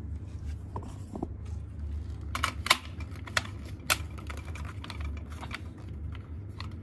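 Clicks and light clatter as an LED track spotlight's plastic adapter is pushed and fitted into its track rail, with a few sharp clicks between about two and four seconds in.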